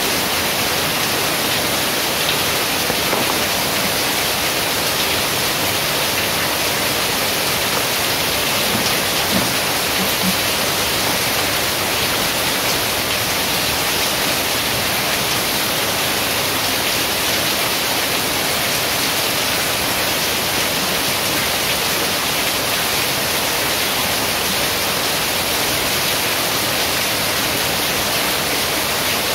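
Heavy rain pouring steadily, an even unbroken hiss.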